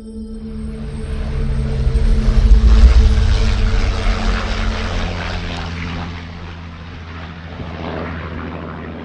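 Propeller-driven aircraft flying past: a piston-engine rumble that swells to its loudest about three seconds in, then fades, with a smaller swell near the end.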